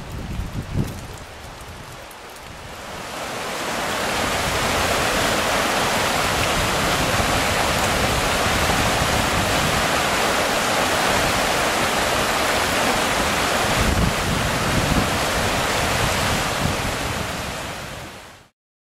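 The Rockfish River, bank-full with snowmelt, rushing through rocky rapids: a steady, loud rush of water that swells in about three seconds in and fades out near the end. The first seconds are quieter, with wind rumbling on the microphone, and a few low gusts of wind noise come again later.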